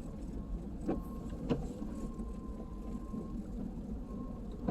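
Steady low rumble of a vehicle driving slowly on a snow-covered dirt road, heard from inside the cabin, with two short knocks about a second and a second and a half in.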